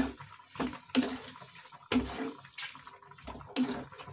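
Wooden spatula stirring a saucy vegetable masala in a nonstick kadai: a run of irregular knocks and scrapes against the pan, roughly one every half second to a second, with a wet, liquid sound from the sauce.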